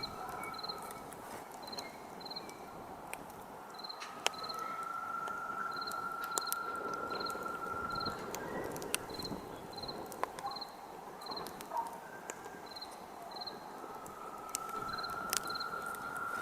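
Wood campfire crackling, with scattered sharp pops. Under it, crickets chirp in short, regular high pulses, and a steady high insect trill fades in and out.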